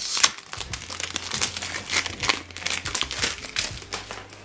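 Cellophane wrap crinkling and crackling as it is peeled off a perfume box, a rapid run of small crackles.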